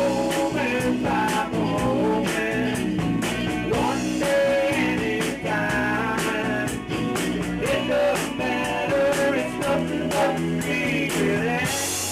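A rock band playing live: electric guitar, drums and a singing voice. There is a cymbal crash near the end.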